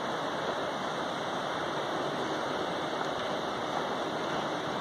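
Steady rushing noise, even and unbroken, with no pauses or distinct events.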